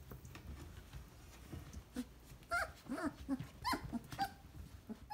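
Three-week-old Basset Hound puppies yelping and squeaking: about half a dozen short, high-pitched calls in quick succession in the second half, after faint rustling and knocks.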